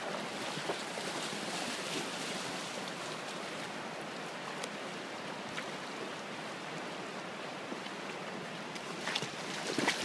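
Steady rush of a shallow river running over rocks and riffles, with a few louder swishes near the end.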